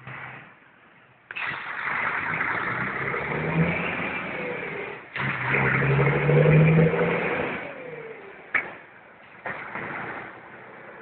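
Heavy truck's diesel engine running loud as the tractor unit with its low-loader trailer drives past close by, then fading away. A short sharp click comes near the end.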